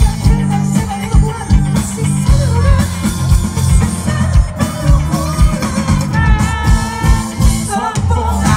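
Live rock band playing through a festival PA, heard from the crowd: drum kit with a steady kick-drum beat and heavy bass, with a wavering melody line over them.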